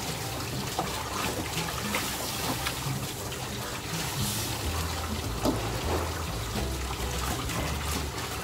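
Water running from a tap into a hot wok as it is scrubbed out with a brush, with splashing and scraping against the metal. A brief louder hiss about four seconds in, as steam comes off the hot wok.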